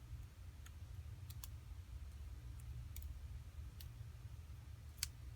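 Small, sharp, irregular clicks and taps of a screwdriver and small parts being handled inside an iPhone 4S during repair, about six in all, the loudest near the end, over a steady low hum.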